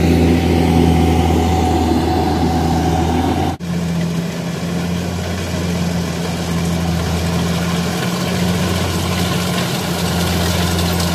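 Rice combine harvester's diesel engine running steadily under load, with a brief break about three and a half seconds in, after which it resumes at a slightly different pitch.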